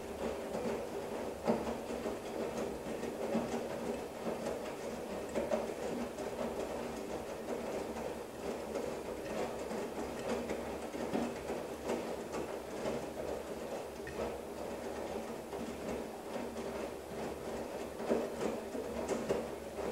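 Girbau commercial front-load washing machine tumbling a load of laundry through soapy water on a hot wash: a steady motor and drum hum with irregular soft knocks as the wet clothes turn.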